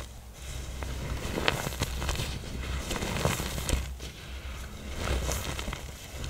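Blocks of pressed black iron oxide powder being crushed, crackling and crumbling with scattered sharp crunches in uneven swells.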